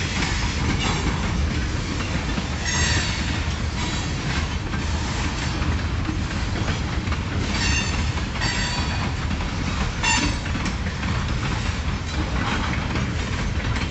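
Kiamichi Railroad freight cars rolling past: a steady rumble of wheels on rail, with short high wheel squeals a few times.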